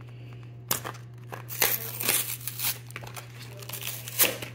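Pokémon trading-card blister pack being torn open by hand: plastic crinkling and cardboard backing tearing in a run of short crackles, starting nearly a second in, the sharpest near the end.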